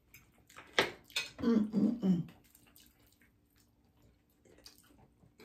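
Close-miked mukbang eating sounds: wet chewing and mouth noises, with a sharp click about a second in and a short wordless vocal sound just after it.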